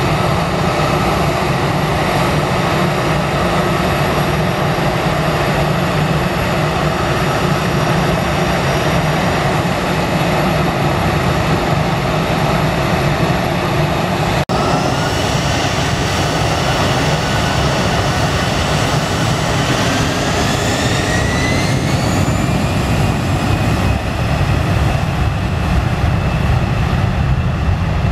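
Citilink Airbus A320's turbofan engines running steadily, a whine over a low rumble. After a brief cut, about two-thirds of the way in, the whine rises in pitch and then holds higher as the engines spool up to takeoff thrust.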